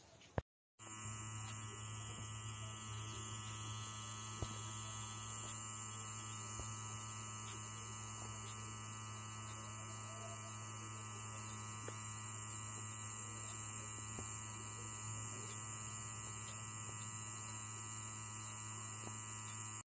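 Steady electrical hum with a stack of overtones, unchanging throughout, after a sharp click and a moment of dead silence near the start.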